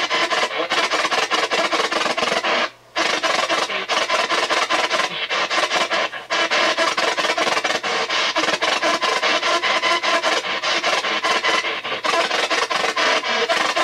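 P-SB7 spirit box sweeping the AM radio band: continuous choppy, rasping static broken into rapid fragments as it scans, with a brief drop-out about three seconds in.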